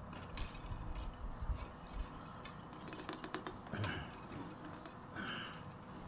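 Thin bamboo strips clicking and rattling against one another as they are woven by hand: a run of small, irregular clicks.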